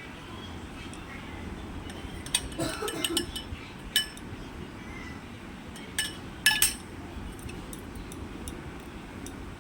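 Spoon clinking against a drinking glass while the cooled mango mixture is spooned in. There is a quick cluster of clinks a couple of seconds in, single clinks about four and six seconds in, and a loud pair close together soon after.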